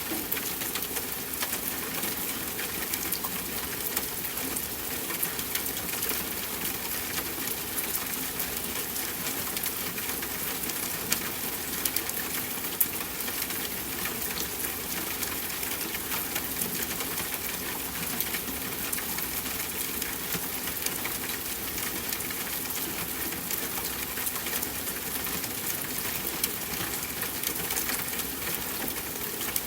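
Steady rain falling, a dense even patter with many small drops ticking and a few louder drips now and then.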